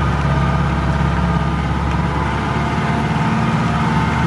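Mahindra Jeep 4x4's engine running steadily as it crawls along a rough jungle track, heard from inside the jeep.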